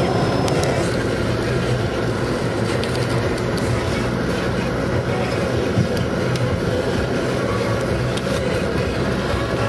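Car driving along, heard from inside the cabin: a steady mix of tyre and road noise with a low engine hum.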